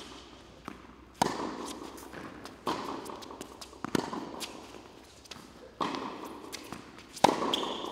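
Tennis ball struck back and forth by racquets during a rally, with bounces on the hard court: a sharp pop about every second and a half, each ringing briefly in the hall. The last strike is the loudest.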